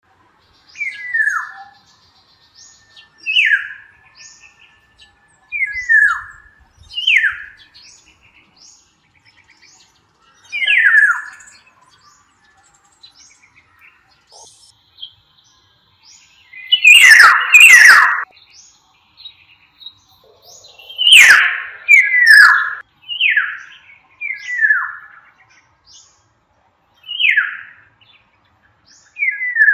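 Black-naped oriole calling: a short call sliding downward in pitch, repeated every one to four seconds. Two pairs of much louder, harsher calls come about halfway through.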